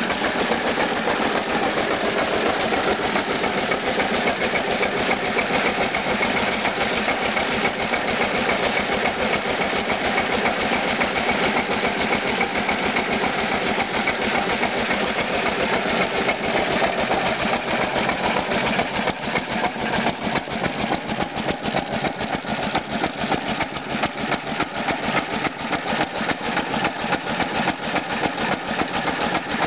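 Unrestored Cushman hit-and-miss engine running with a rapid, even knock, belt-driving a three-cylinder Hardie plunger pump that is pumping water.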